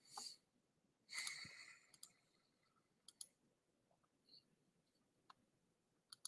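Near silence with a few faint, scattered computer mouse clicks as a screen share is started, and a brief soft noise about a second in.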